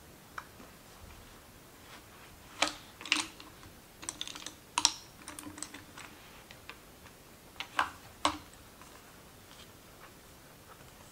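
Scattered sharp clicks and taps of make-up brushes and a plastic eyeshadow palette case being handled on a table, several in quick succession, the loudest about five seconds in.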